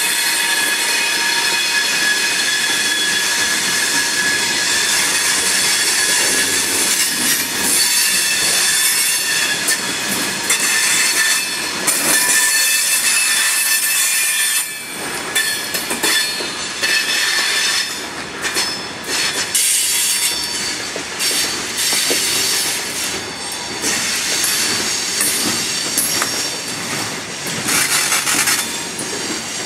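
Loaded steel coke hopper cars of a heavy freight train rolling past, loud and steady. The wheels squeal in several thin, high, steady tones, with wheel clicks over rail joints coming more often in the second half.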